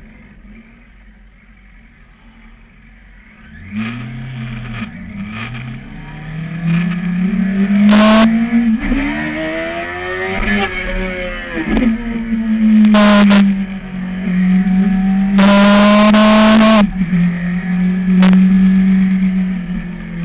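Sport motorcycle's engine heard from the rider's seat: low and quiet for the first few seconds, then revving up from about four seconds in, its pitch rising and dropping back several times as it accelerates and shifts through the gears, with a few short louder stretches near the middle and later on.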